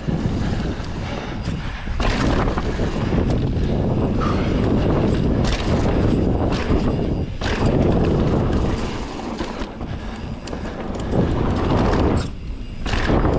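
Rushing noise of a vehicle on the move, with wind buffeting the microphone, swelling and briefly dipping a few times.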